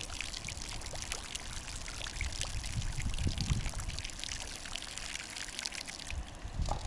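Old engine oil pouring and splattering steadily from the van's sump into a drain pan, bubbling as it falls.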